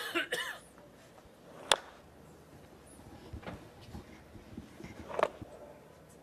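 Baseball smacking into a catcher's mitt as pitches are caught: one sharp, loud pop about two seconds in and a softer pop about five seconds in.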